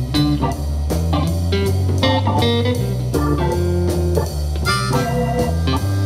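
A JBL Flip 5 portable Bluetooth speaker playing a blues instrumental with guitar, over a strong, steady bass line.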